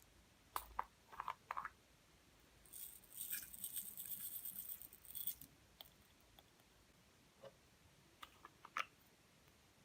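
Small clicks and taps, then a high, crackly rustle lasting about two and a half seconds, then a few more clicks near the end: makeup and slime being handled as the makeup is mixed into the slime.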